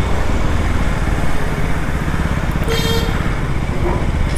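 KTM RC 200's single-cylinder four-stroke engine running steadily at low speed in traffic, a constant pulsing rumble. A brief high tone sounds about three seconds in.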